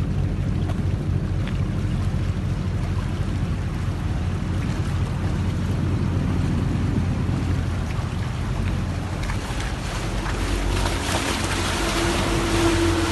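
Boat engine running steadily with water wash and wind noise on the Grand Canal. From about ten seconds in, a louder rushing hiss builds, with a faint steady tone over it near the end.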